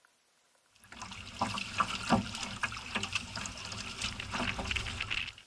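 Choppy lake water lapping and splashing against a canoe's hull close to the microphone, in quick irregular slaps over a low wind rumble. It starts suddenly about a second in and stops just before the end.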